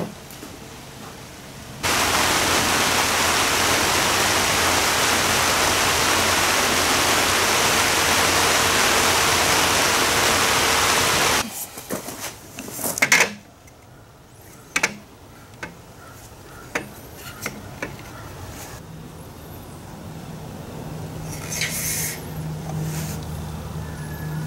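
A loud, steady rushing hiss that starts and stops abruptly, followed by scattered light clicks and knocks and a faint low hum near the end.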